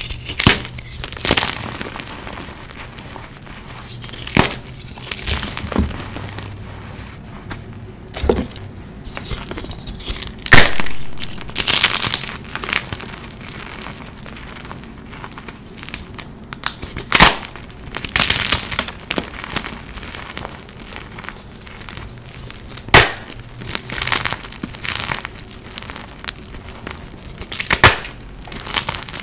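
Blocks of dyed gym chalk being crushed and crumbled by hand into powder: soft, grainy crunching, broken by several sharp cracks as pieces snap apart.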